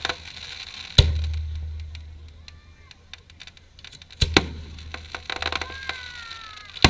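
Fireworks show: aerial shells bursting with booms that rumble away, about four of them, two in quick succession past the middle, with a spatter of crackling and a falling whistle toward the end.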